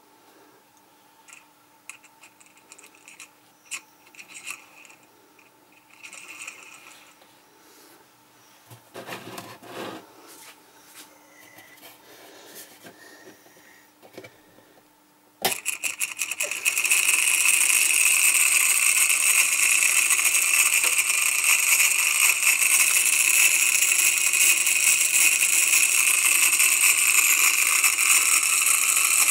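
Homemade simple DC motor, a wire coil spinning on its bare-wire axle in two metal supports over a ring magnet, starts suddenly about halfway through and runs fast, its axle chattering in the supports with a loud, steady rattling buzz. Before that there are only faint scattered clicks.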